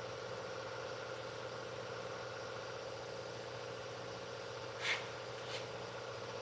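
Steady mechanical hum with a fixed pitch, with two short clicks about five seconds in.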